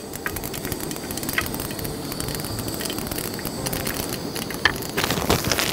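Whole spices (mustard seeds, curry leaves and a dried red chilli) sizzling in hot oil in a frying pan, with scattered small pops and crackles. A louder burst of noise comes near the end.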